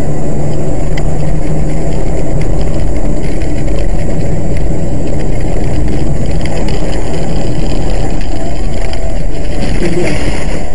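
Steady engine and road noise from a car driving, heard from inside the cabin, with a low hum that stays even throughout.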